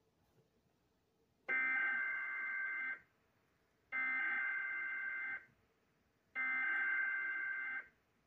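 Three harsh, buzzing bursts of Emergency Alert System SAME data tones from a NOAA Weather Radio broadcast. Each lasts about a second and a half, with about a second between them. They are the digital header that opens a new alert.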